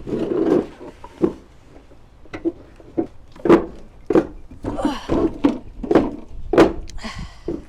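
A run of short, sharp knocks and clunks, about two a second, with a couple of brief scraping rustles between them.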